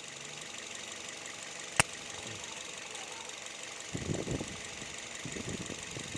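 A 2014 Toyota Vios engine running steadily during an ignition coil test, with one sharp click about two seconds in and some uneven low rumbles in the last two seconds.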